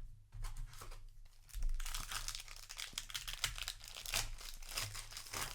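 Magic: The Gathering set booster pack's plastic foil wrapper being crinkled and torn open by hand, light crackling at first, then heavier crinkling and tearing from about one and a half seconds in.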